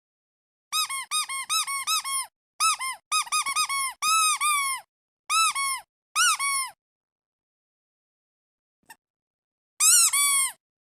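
Squeeze-toy rubber duck squeaked in quick runs: a string of about half a dozen squeaks, a longer fast run, two single squeaks, then after a long gap two more near the end, each squeak rising and falling slightly in pitch.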